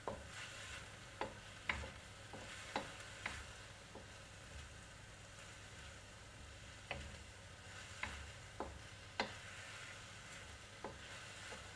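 Chicken and bacon sizzling lightly in a wok while a wooden spatula stir-fries them, its edge knocking and scraping on the metal in irregular sharp clicks. The clicks come in two bunches, at the start and again past the middle, with a quieter stretch of sizzling between.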